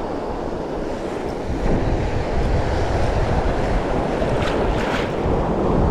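Wind buffeting the microphone over the wash of choppy sea waves, with two short rushes of noise near the end.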